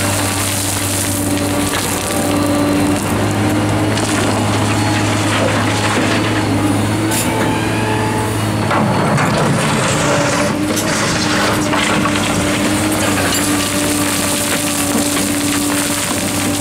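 Liebherr R944 hydraulic excavator's diesel engine running steadily under load, with gravel crunching as the bucket digs into the pile. Near the end, stones clatter as the bucket tips its load into the steel body of a Perlini 366C dump truck.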